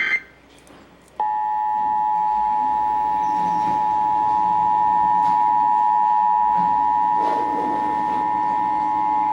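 Emergency Alert System attention signal: a steady two-tone alarm that starts about a second in and holds unchanged for about eight seconds, marking the start of an EAS test broadcast.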